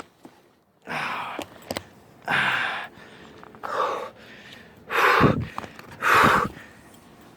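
A man breathing hard and fast through the mouth: about six heavy, gasping breaths a little over a second apart, louder in the second half.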